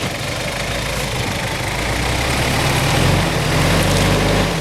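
Off-road SUV engine working under load in mud, getting louder for about two seconds as it is given more throttle, then easing off suddenly near the end.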